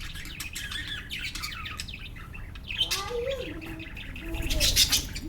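Pet lovebirds chirping rapidly over one another, with a lower gliding call about three seconds in and a loud rustling burst just before the end.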